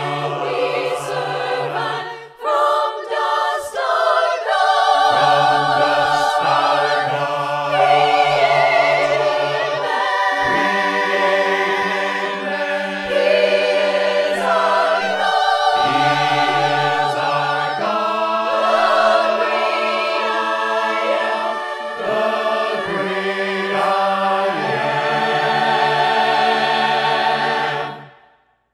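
Mixed men's and women's choir singing a hymn a cappella in harmony, with held chords, ending on a final chord that stops near the end.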